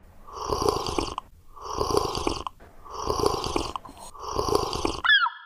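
A person loudly slurping hot coffee from a glass: four long drawn slurps of about a second each, one after another. Short falling squeaks come in near the end.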